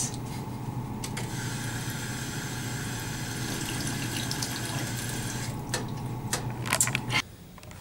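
Stainless-steel drinking fountain running while someone drinks from it: a steady stream of water for a few seconds over a low hum. The hum cuts off suddenly near the end.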